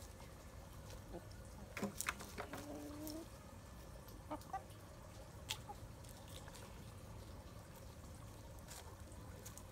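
Free-ranging chickens foraging, with one faint, drawn-out low cluck about two and a half seconds in. A few short light clicks and taps come just before it and a couple of seconds after.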